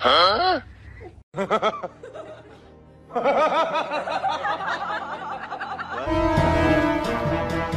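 Comic high-pitched snickering laughter sound effect: a couple of short snickers in the first two seconds, then a longer run of giggling from about three seconds in, with music beneath.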